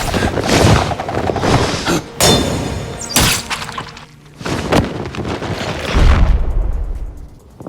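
Film sound effects of a series of heavy crashes and impacts with something breaking and shattering, about a second apart, under a music score. The sound drops away sharply near the end.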